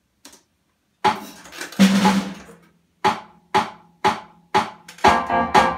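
Drum kit played for a grade exam piece: two loud strikes ring out about a second in, then four evenly spaced hits about two a second count in, and near the end the full groove starts with a backing track, hits coming several times a second.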